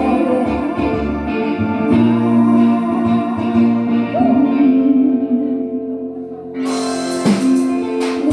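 Pop song music with guitar and held chords, a voice singing faintly; drums or percussion come in sharply about two-thirds of the way through.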